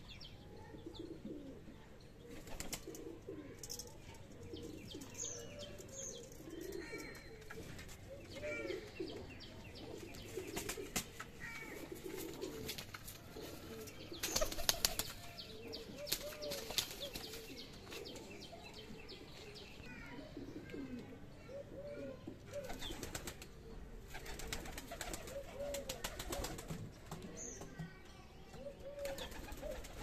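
Domestic pigeons cooing again and again in low, rolling calls, with flurries of wing flapping about halfway through and again later on. Thin high chirps of small birds come now and then.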